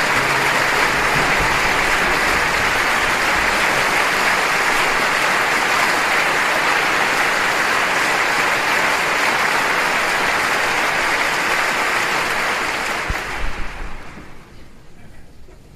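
Audience applause, a steady dense clapping that fades out near the end.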